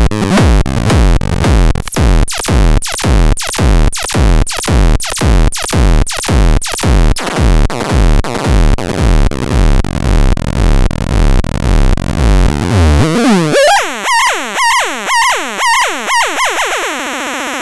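Minimal techno made with synthesizer and drum machine: a steady kick drum about two beats a second over a bass line. About thirteen seconds in, the kick and bass drop out, leaving a high, filtered synth pattern that gives way to a sustained noisy tone near the end.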